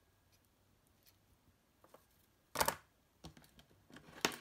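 Copper foil tape and cardstock being handled and pressed down by hand: a few faint ticks, then a short crinkly rustle about two and a half seconds in and a sharp tap near the end.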